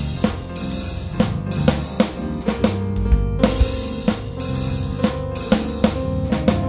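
Instrumental music with a drum kit beat of bass drum and snare hits in a steady rhythm over a bass line and sustained pitched notes.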